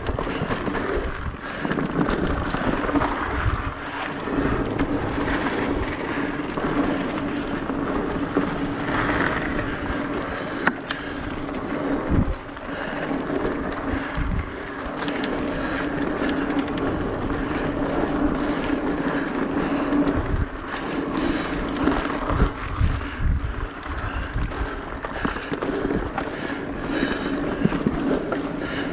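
Mountain bike rolling along a dirt singletrack: a steady rush of tyre noise over dirt and leaves, with wind on the microphone, a steady hum, and irregular knocks and rattles as the bike hits bumps.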